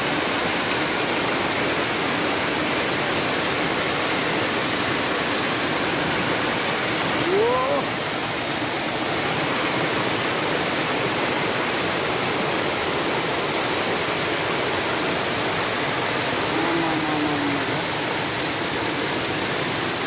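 Floodwater of a swollen monsoon hill stream, the Pahire Khola, rushing steadily over the road where it has broken its channel.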